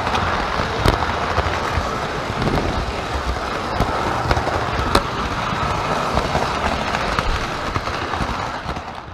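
Lionel O-gauge model train running on its track, heard up close from a camera riding aboard: a steady clattering rumble of wheels on the rails, with sharp clicks scattered through it, fading out near the end.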